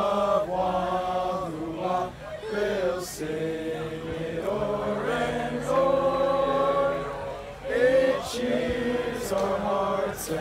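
A group of young voices singing slowly together, holding long notes with short breaks between phrases.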